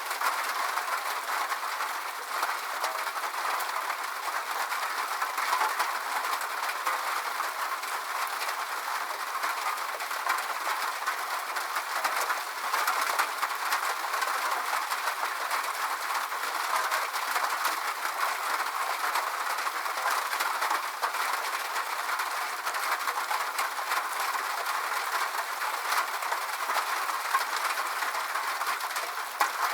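Steady rain with a dense patter of drops, even and unbroken throughout.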